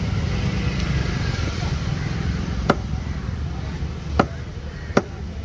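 Heavy cleaver chopping tuna on a wooden log chopping block: three sharp chops in the second half, about a second apart. Under them runs a steady low rumble of road traffic.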